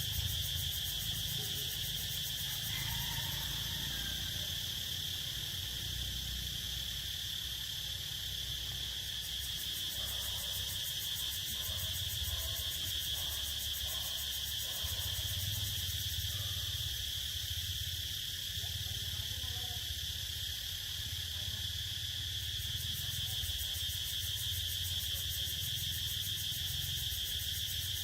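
Steady, unbroken high-pitched insect chorus, with a low rumble underneath.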